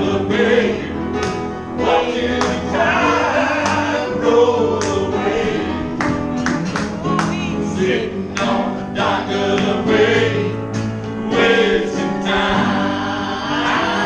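A small live band playing: a man singing over piano and a drum kit, with frequent sharp drum hits and no pause.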